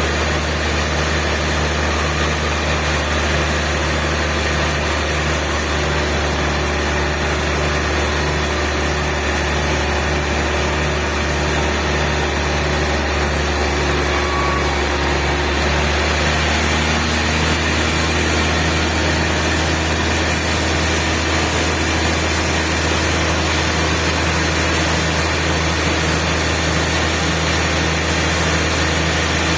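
Sawmill machinery running with a steady, loud low hum and a regular pulsing beat. Its tone shifts slightly about halfway through.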